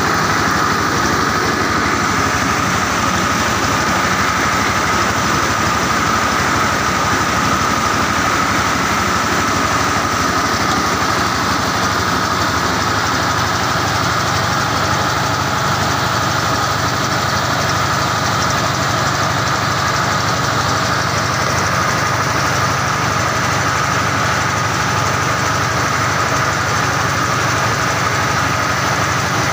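Engine-driven mobile rice huller running steadily while unhusked rice is milled through it, its engine hum and the rushing of grain overlaid by a steady high whine.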